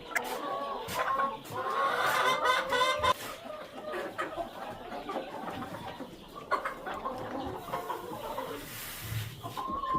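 Laying hens clucking, several at once, busiest about two to three seconds in, with a few sharp knocks among them.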